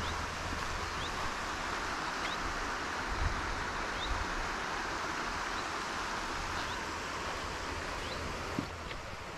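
Mountain stream water rushing steadily, with short high chirps repeating about once a second over it. A single sharp knock sounds near the end.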